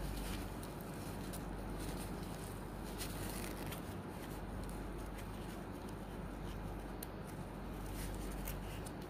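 Faint rustling and light clicks of fingers handling a small plastic LED torch, pressing its reflector into place and wiping off glue with tissue, over a steady low hum.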